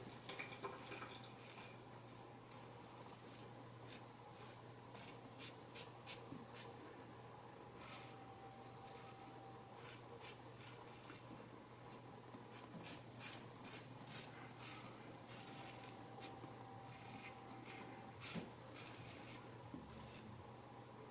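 Single-blade razor scraping through lathered stubble in many short, faint rasping strokes, shaving against the grain on the upper lip.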